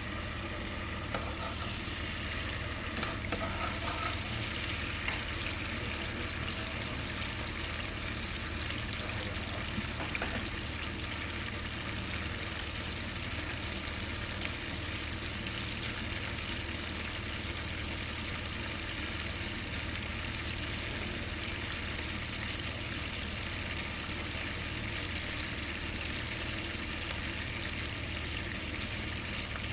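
Sautéed garlic and onions sizzling in oil in a frying pan, with tomato sauce just poured in: a steady frying hiss with fine crackles that picks up about a second in.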